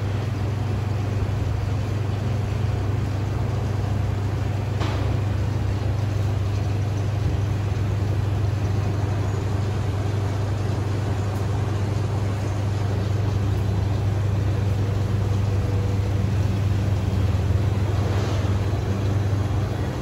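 Dexter commercial tumble dryer running, its drum turning with a steady low hum from the motor and blower. There is a faint tap about five seconds in and another near the end.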